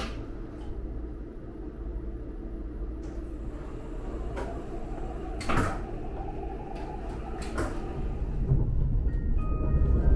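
Sliding vestibule door of a Kintetsu 50000 series Shimakaze train clicking shut, then the steady low hum of the train, with a few light ticks and a sharp clunk about five and a half seconds in. The low rumble grows louder near the end.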